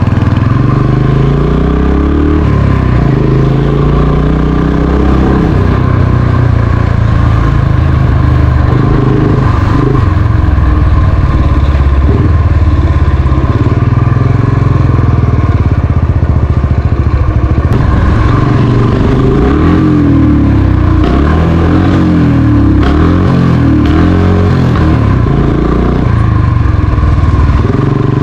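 Motorcycle engine running under way, its revs rising and falling again and again as it shifts through gears.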